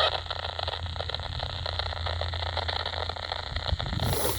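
CB radio receiver hissing open-channel static on channel 28 over a steady low hum, with no station coming through, a sign of poor band conditions. A brief sharper hiss comes near the end.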